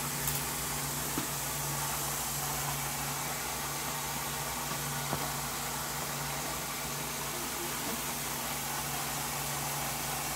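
A steady low hum under an even hiss, with a couple of faint knocks.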